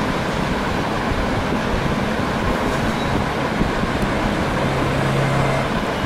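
Steady background noise, an even hiss with a faint low hum joining in over the second half.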